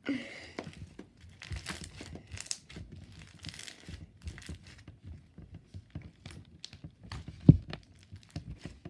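Slime being squished, stretched and poked by hand: a continuous run of small wet clicks and crackles, with one louder pop about seven and a half seconds in.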